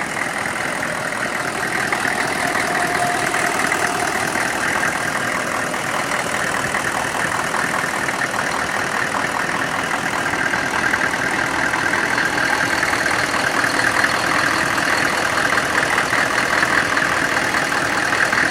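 Freshly rebuilt GM 6.5 L turbo-diesel V8 idling steadily with an even diesel clatter. The engine is still breaking in on new pistons and rings.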